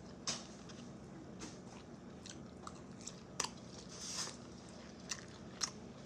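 Close-miked eating: soft chewing with scattered wet mouth clicks and smacks, and a brief hiss about four seconds in.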